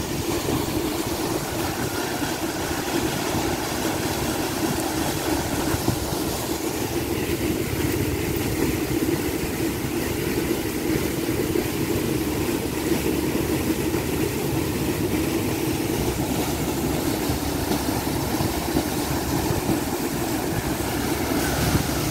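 Water gushing at full flow from an electric pump station's outlet pipe and churning through a muddy channel: a steady, heavy rushing with no breaks.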